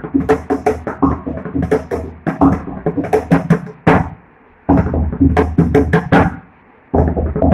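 Solo mridangam in Adi tala: fast runs of sharp, pitched strokes on the right head over deep bass strokes from the left head, broken by two brief pauses, one about halfway through and one near the end.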